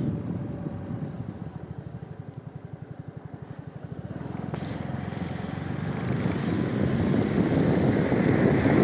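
Vehicle riding noise with wind rumbling on the microphone. It eases to a low, evenly pulsing engine rumble for a couple of seconds, then grows steadily louder toward the end.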